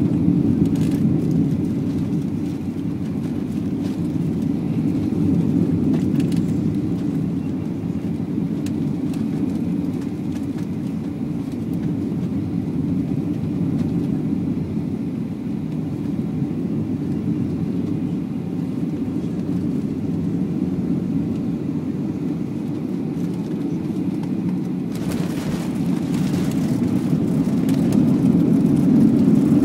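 Cabin noise inside a Boeing 737-800 landing: a steady low rush of its CFM56 jet engines and the airflow. About 25 seconds in, with the jet on the runway, it turns louder and brighter with a rising hiss.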